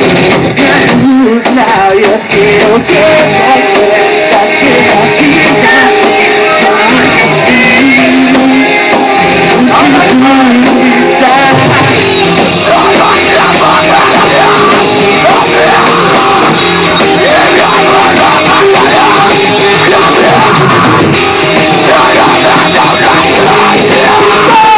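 Live rock band playing loud, hard-edged rock on electric guitars and a drum kit, kicking in at full volume right at the start.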